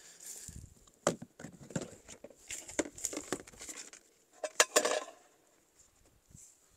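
Camping gas burner gear being handled, as a canister and burner head are swapped and fitted: a string of clicks, knocks and rustling, the sharpest knocks a little past halfway.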